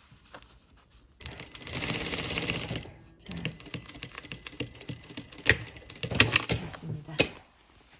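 Sewing machine stitching through a folded denim jeans hem: a short fast run about a second in, then slower, uneven stitching with clicking and several sharp clacks in the second half.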